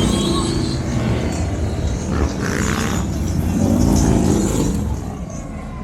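Motorcycle engines running and revving, with the pitch rising and falling twice, most strongly about three to four seconds in.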